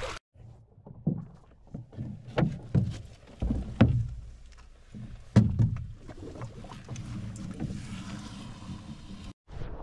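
Metal rowboat being moved: a string of hollow knocks and clunks on the hull and fittings through the first half, then a steady low rumble of the boat moving on the water.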